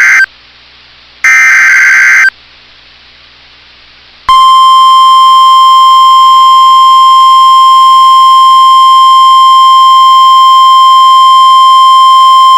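NOAA Weather Radio emergency alert: the end of one SAME header data burst and then one more full burst of about a second, a harsh digital buzz. About four seconds in, the steady 1050 Hz warning alarm tone comes on and holds. The tone is the signal that turns on alert radios for a warning.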